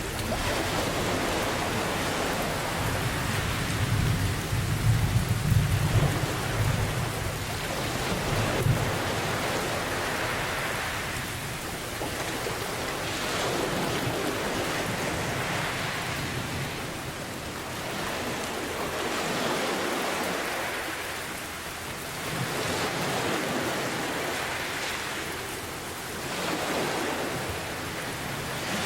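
Steady rain with a low rolling thunder rumble through the first third; after that the thunder dies away and ocean waves wash in and out every three seconds or so under the rain.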